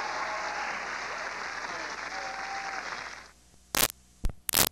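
Studio audience applauding, with a few faint held tones over it. The applause cuts off abruptly about three seconds in, leaving a low hiss broken by three loud, sharp pops as the videotape recording breaks up into static.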